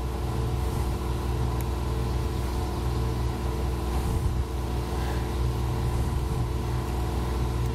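Steady low mechanical hum with a few held tones, unchanging throughout, with a couple of faint light ticks from hands handling a rubber hose and plastic fitting.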